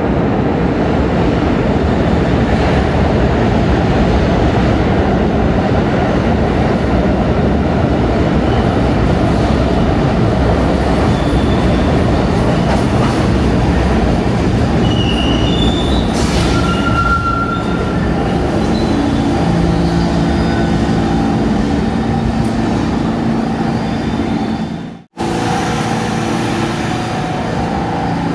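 R46 subway train running into the station, a loud steady rumble of wheels on rail with short high-pitched wheel squeals near the middle. A steady pitched whine joins in the second half, and the sound cuts out for a split second near the end.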